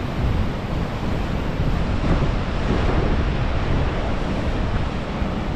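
Strong wind buffeting the microphone over the steady wash of surf breaking against the rocky shore, loud throughout.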